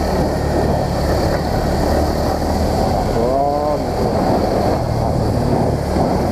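Small motorcycle's engine running steadily at low speed over a rough dirt lane, mixed with wind rush on the helmet-mounted microphone. About three seconds in, a short rising-and-falling tone sounds over it.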